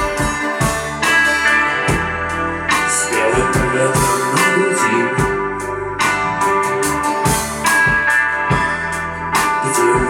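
Live rock band playing an instrumental passage with no singing: electric guitar and keyboard over a low bass line and a steady drum beat.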